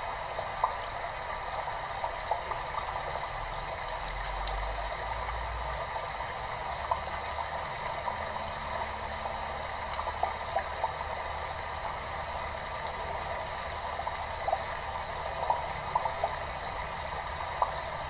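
A mass of fish crowded in very shallow water, gasping for air at the surface as the water runs out: a steady wet crackle of many small pops and splashes.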